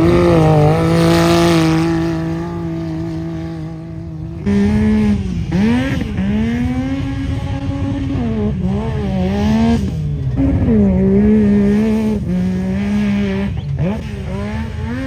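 Side-by-side UTV engines running hard on a sand hill climb. For the first few seconds one engine holds a high steady rev while its tires throw sand. From about four and a half seconds an engine revs up and down over and over, as on and off the throttle.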